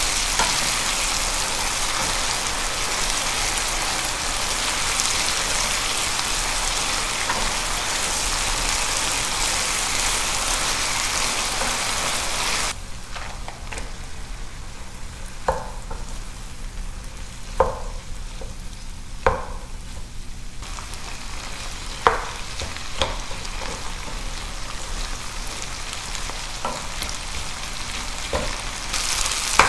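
Food frying in a pan with a dense, steady sizzle that cuts off abruptly a little under halfway through. A quieter stretch follows with several sharp knocks of a cooking utensil against the pan, and the loud sizzle comes back near the end.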